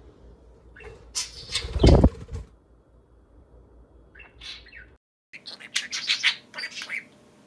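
A budgerigar's wings flapping in a short burst, loudest about two seconds in. After a brief silent break, a run of quick budgie chirps.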